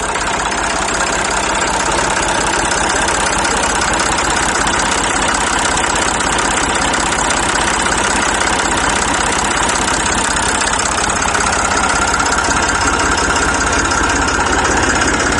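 A motor running steadily at a constant speed, with a rapid even pulsing and no change in pitch.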